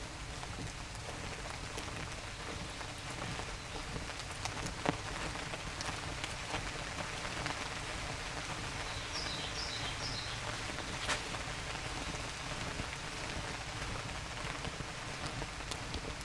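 Light rain falling in a forest, a steady patter with many scattered sharper drops. A few short high chirps come about nine to ten seconds in.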